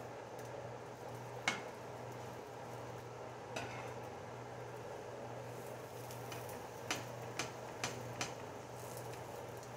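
Spatula knocking against a griddle pan: a single knock about a second and a half in, another a couple of seconds later, then four quick taps in the second half. Under it, flour-tortilla wraps fry in the pan with a faint steady sizzle.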